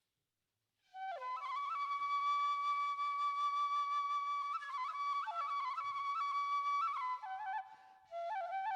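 Kagura flute, a Japanese bamboo transverse flute, playing a solo melody with slides and ornamented trills. It comes in about a second in, breaks off briefly near the end, then resumes.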